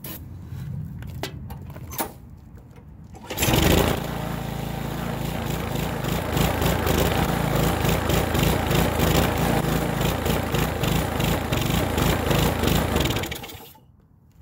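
Small gasoline engine of a walk-behind lawn mower with its blade removed, catching about three seconds in and then running loud with a rhythmic, uneven pulse, which the owner puts down to the missing blade's flywheel mass. It stops near the end.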